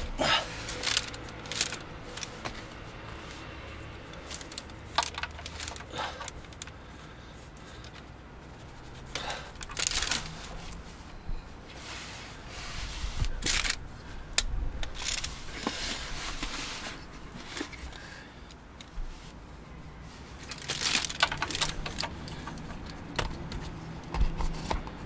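Plastic sheeting crinkling and the metal clinks of a socket wrench and extension being handled, in short scattered bursts with pauses between, as the socket is fitted to the oil drain bolt.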